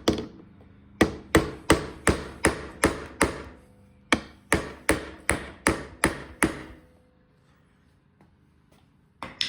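Hammer tapping a screw extractor into the drilled-out broken bolt in a Yamaha YZ250 subframe to seat it. Two runs of sharp metal taps with a short ring after each, about three a second, separated by a brief pause, then a single knock near the end.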